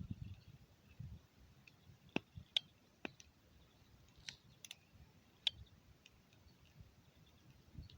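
Campfire crackling: burning wood giving off faint, irregular sharp pops and snaps, about a dozen scattered through the stretch.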